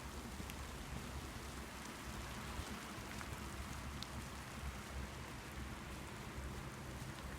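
Light rain falling steadily on the woods, a soft even hiss with scattered drops ticking, over a low steady rumble.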